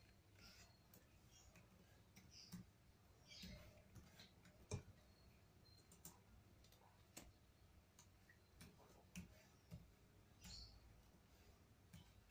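Faint, scattered clicks from a laptop's touchpad and keys and a computer mouse being worked, with one sharper click about five seconds in.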